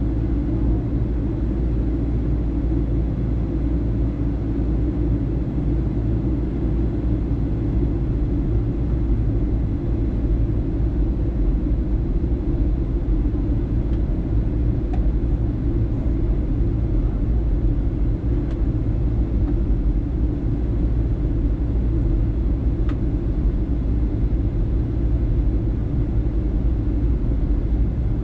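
Boeing 757-200 airliner in flight: a steady, unbroken low rumble of engines and airflow.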